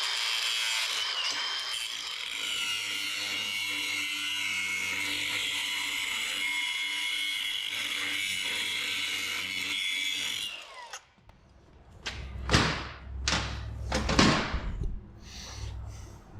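Cutoff wheel running with a steady high-pitched whine as it cuts a groove along the joint between two pieces of steel, to prepare the seam for a full weld. About ten seconds in it shuts off and winds down. A few loud knocks and scrapes follow near the end.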